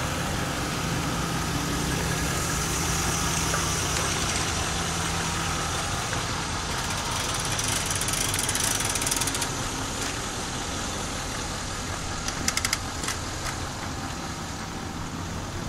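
An engine idling steadily, with a short run of sharp clicks about twelve seconds in.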